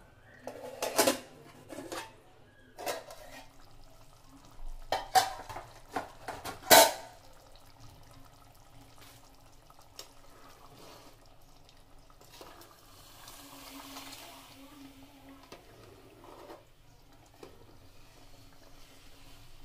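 Metal ladle and utensils clanking against a metal cooking pot, about eight sharp clanks in the first seven seconds with the loudest near the seventh second. After that comes softer scraping as the ladle stirs thick curry gravy with whole eggs in the pot.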